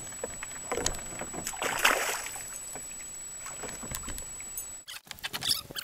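Water splashing and sloshing around a fishing kayak, loudest about two seconds in, with light clicks and knocks from the fishing gear.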